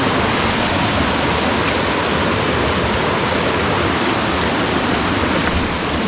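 Rushing water: a loud, steady, even rush of white water with no pauses or changes.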